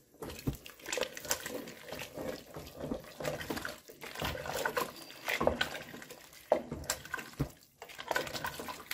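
A spoon stirring chunky vegetable soup in a large metal pot: wet sloshing of broth and vegetable pieces, with irregular knocks of the spoon against the pot.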